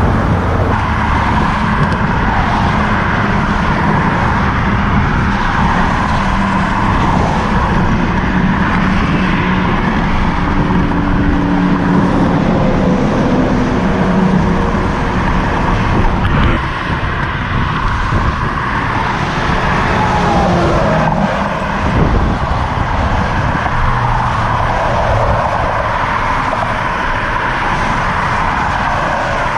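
Road traffic, cars and trucks, passing close by on a busy multi-lane road, mixed with steady wind rushing over the microphone of a camera mounted on a moving bicycle.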